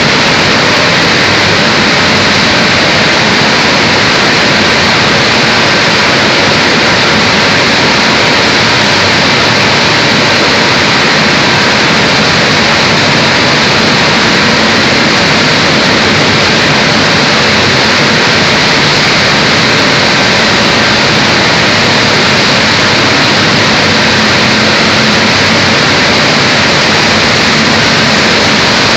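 Rice milling plant machinery running: a loud, steady, unbroken mechanical noise with no rhythm or changes.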